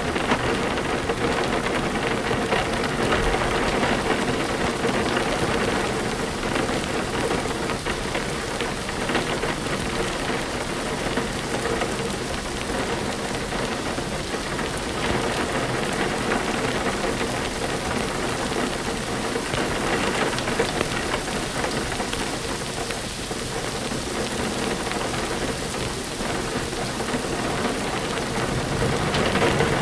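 Steady, even rain falling, with no breaks or single loud events.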